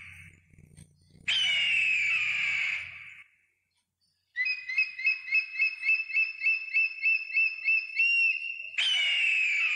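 Bird-of-prey calls: a long harsh scream falling in pitch, then a fast run of about a dozen high chirps, about three a second, then another long falling scream near the end.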